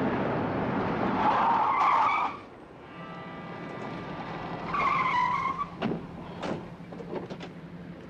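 Rumbling noise of an elevated train that cuts off about two seconds in, just after a brief squeal. About five seconds in, a car's tyres squeal briefly as it brakes to a stop, followed by a few sharp knocks over a low steady hum.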